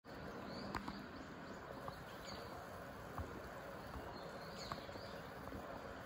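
Steady, faint outdoor background noise with a few soft clicks and faint, brief high chirps.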